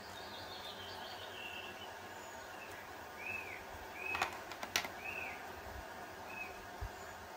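Birds chirping over a steady background hiss: a falling run of chirps near the start, then a few short arched chirps, with a couple of sharp clicks about four seconds in.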